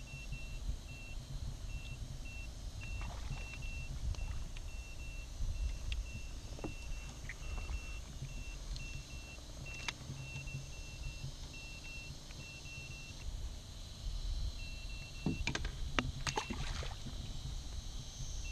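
Portable sonar fish finder's fish alarm giving a string of short high beeps, about two a second, signalling fish under the transducer. The beeps break off for a moment a little past the middle, over a low rumble of wind on the microphone.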